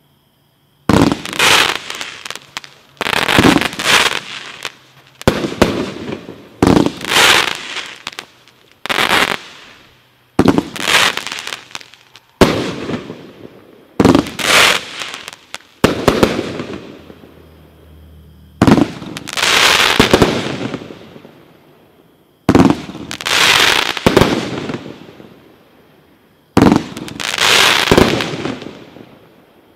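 Black Cat consumer firework cake firing shot after shot, about one every two seconds, with a longer pause past the middle. Each shot is a sharp report followed by a burst of noise that fades over one to two seconds.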